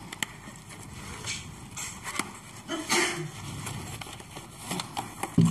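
Cardboard box being handled and opened by hand: scattered scrapes, taps and rustles as the book is slid out of its box. A brief voice sound comes near the end.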